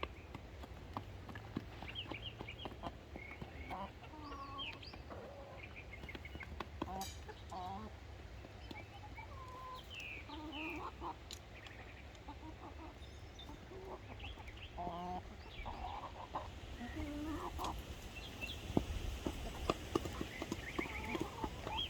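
A flock of chickens clucking, with many short calls overlapping one another, over a low steady rumble. A few sharp knocks or clicks come in near the end.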